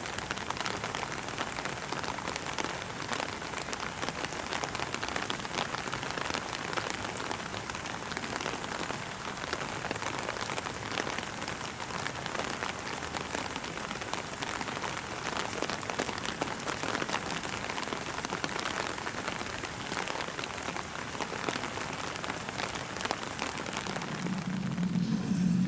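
Steady rain, a dense even hiss of many fine drop ticks. A low steady hum comes in near the end.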